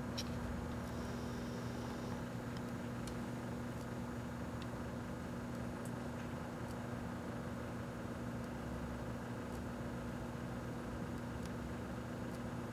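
1984 Kenmore microwave oven running: a steady hum at an even level, with a few faint clicks scattered through it.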